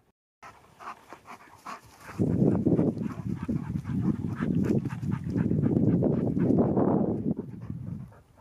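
Dog panting in quick rhythmic breaths. From about two seconds in, louder gusts of wind buffet the microphone.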